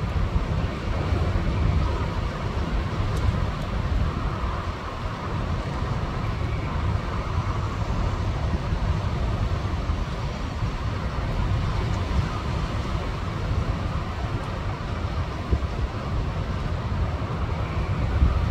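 Strong storm wind blowing on a balcony-mounted camera: a loud, continuous rumbling rush on the microphone that swells and eases slightly.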